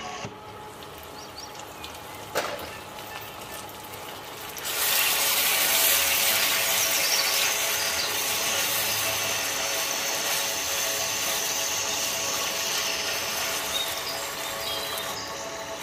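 Onion and tomato sambal base sizzling loudly in a wok while being stirred with a spatula; the sizzle comes in suddenly about five seconds in. Before that it is quieter, with a steady hum and a single clink about two seconds in.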